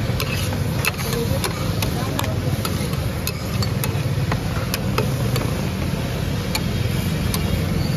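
Metal spatulas clinking against an iron tawa as kaleji is stir-fried, sharp irregular clinks about two or three times a second, over a steady low rumble of street traffic.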